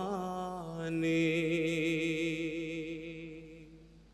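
Solo male voice chanting an Urdu nazm melodically with no accompaniment. About half a second in he holds one long note with a slight waver, and it fades away near the end.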